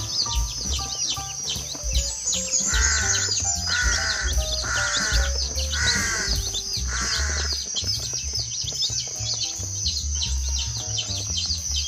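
Ducklings peeping nonstop in short, high, falling chirps over background music. A run of five louder, harsher calls comes about three to seven seconds in.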